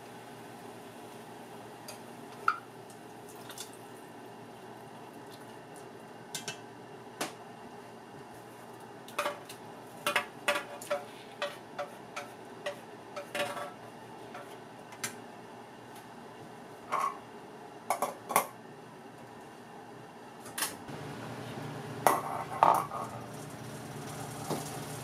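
Chopsticks and a kitchen knife blade clinking and tapping against a metal saucepan and an open tin can, in scattered short knocks that come thickest in the middle and near the end, over a steady faint hiss.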